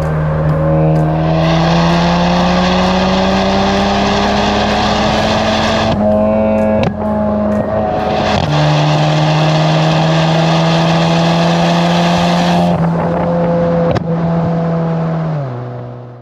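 Car engine pulling under acceleration, its pitch slowly rising. About six seconds in it breaks off for a gear change, then pulls again from a lower pitch, and it drops in pitch near the end as the sound fades out.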